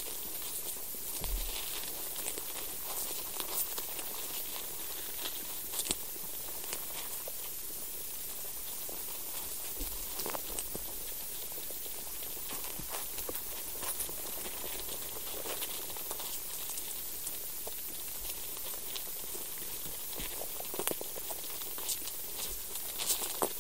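Underground soil recording: a steady hiss dotted with irregular faint clicks, crackles and scratches, the sounds of soil life moving and feeding in the earth.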